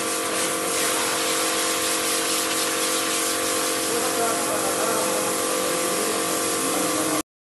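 Pressure washer running: the water jet hissing steadily against a car's body over the steady hum of the pump motor. The sound cuts off abruptly near the end.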